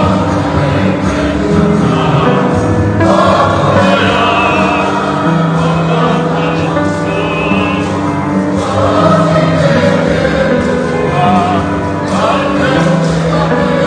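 Choir singing church music, with held, wavering notes and several voices together.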